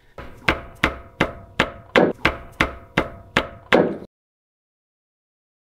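A hammer striking metal about ten times, roughly three blows a second, each with a short metallic ring, as the leaking seal behind the drive-shaft flange is knocked out. The sound cuts off abruptly about four seconds in.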